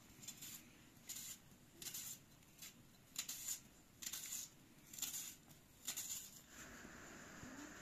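Kitchen knife slicing through an onion held in the hand: a series of short, crisp cuts, roughly one a second, that stop about six seconds in.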